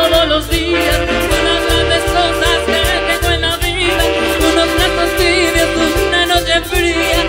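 Live salsa orchestra playing: congas and timbales over a steady bass line, with trumpets.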